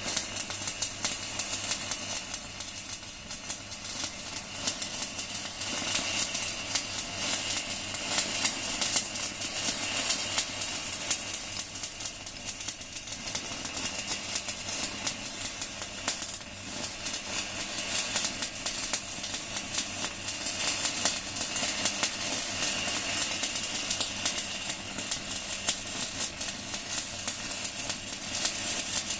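Stick-welding arc from a REDVERG RD-WM 185 MINI inverter at 160 A, burning a 4 mm basic-coated UONI electrode: an unbroken dense crackle and sizzle. The arc keeps burning at this high current without the machine cutting out into overload protection.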